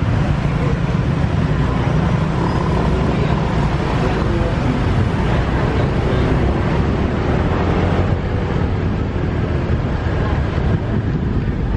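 Motorcycle taxi ride heard from the pillion seat: the small motorbike's engine running under steady low wind and road noise, with other traffic around.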